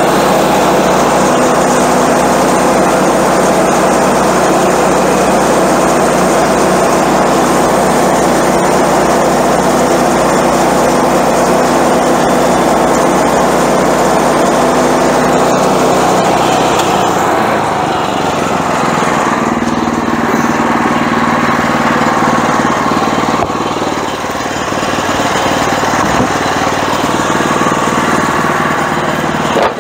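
Small gas engine of a Woodland Mills HM126 portable bandsaw mill running under load while its band blade cuts through a maple log. A little past halfway the sound drops somewhat and changes, with the engine still running, as the blade leaves the cut.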